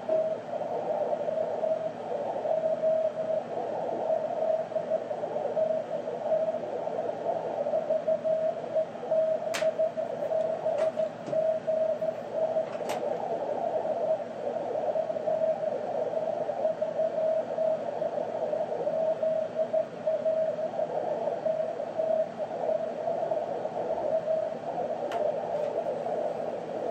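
Amateur radio receiver audio on 432 MHz: a weak steady-pitched CW tone in the hiss of a narrow CW filter, wavering in strength as a moonbounce (EME) signal fades. A few faint clicks come about ten to thirteen seconds in.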